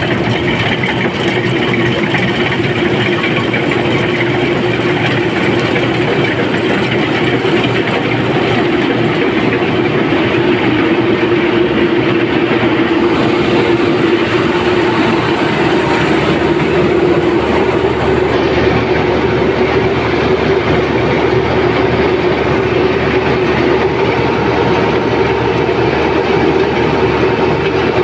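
Zoomlion tracked rice combine harvester running steadily while cutting and threshing paddy: continuous engine and machinery noise with a constant hum, heard close up from the operator's position.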